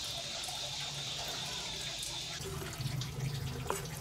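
A steady hiss like running water, with a few light taps of a knife on a wooden chopping board as raw pork is cut, in the second half.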